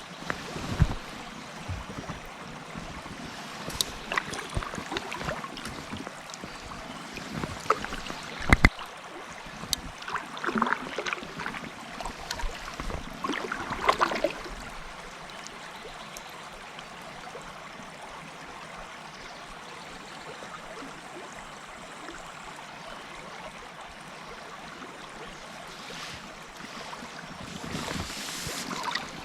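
River water running around a kayak, with scattered knocks and splashes through the first half, then a steady rush of flowing water.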